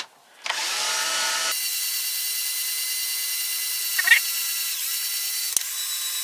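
Electric drill turning a long threaded rod: it speeds up about half a second in, then runs with a steady whine. A brief squeak comes about four seconds in and a sharp click shortly after.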